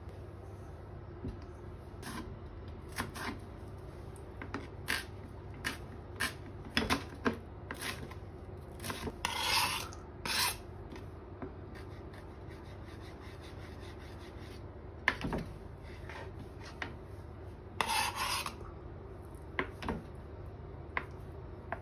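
A chef's knife working on a plastic cutting board: scattered light taps and clicks of the blade, and loud rasping scrapes as the blade pushes chopped shallots off the board into a steel bowl, twice about ten seconds in and once more later, over a steady low hum.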